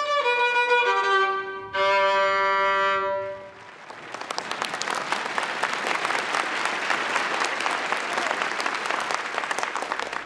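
Solo violin playing a short bowed melody that ends on a long held note, followed after about four seconds by an audience applauding.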